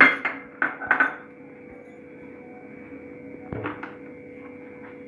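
A few sharp knocks and clinks of kitchen containers and utensils on a bowl and stone countertop while ingredients are added to a mixing bowl: three in the first second and one more about three and a half seconds in. A steady electrical hum runs underneath.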